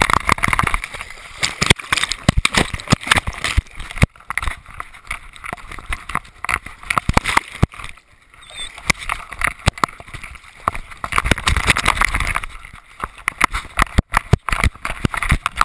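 Close-up sound from a camera strapped to an English setter: water splashing and sloshing as the dog moves through lake shallows, with many knocks and rattles against the camera. Near the end comes the quicker thudding of the dog running on grass.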